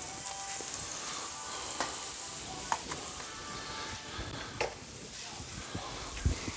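Rice and vegetables frying on a Blackstone flat-top griddle, a steady sizzle, with a few sharp clicks of utensils against the griddle as the food is stirred.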